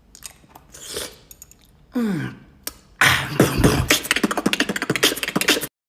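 A person beatboxing: a fast run of mouth-made drum sounds starting about three seconds in and cutting off abruptly near the end, after a short vocal sound that slides down in pitch.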